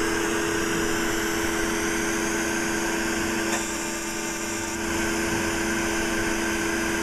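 Steady machine hum from the laser treatment equipment, running continuously with a slight dip in the middle.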